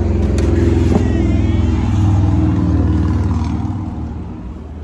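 A motor vehicle's engine running with a low hum that builds over the first two seconds and then fades away. A light click comes about a second in.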